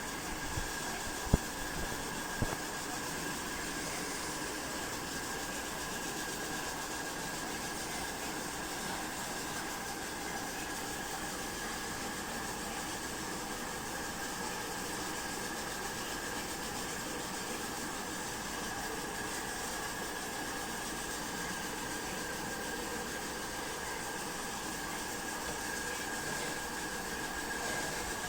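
Steady hiss of static from a mini portable black-and-white TV that will not tune in a station, with a faint steady tone running through it; two sharp clicks come in the first few seconds.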